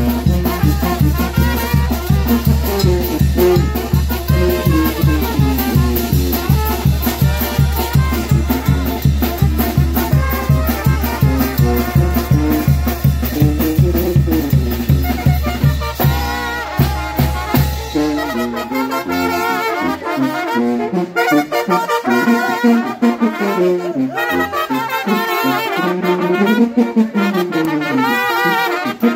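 Festive brass band music with trumpets playing a lively melody over a steady, even bass beat. About sixteen seconds in, a trumpet holds a long note; after that the bass drops out and the trumpets carry on alone.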